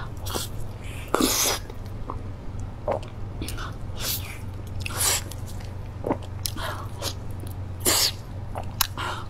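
Wet mouth sounds of a person biting and eating soft, ripe durian flesh close to a clip-on microphone: irregular sucking and smacking noises about once a second, over a steady low hum.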